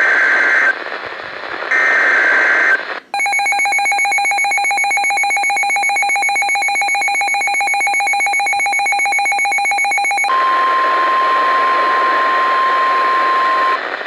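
Emergency alert tones on a weather radio broadcast: two short screeching data bursts of the alert header about a second apart, then about seven seconds of a harsh, rapidly pulsing two-tone attention signal that switches abruptly to a steady single-pitch warning tone for about three and a half seconds.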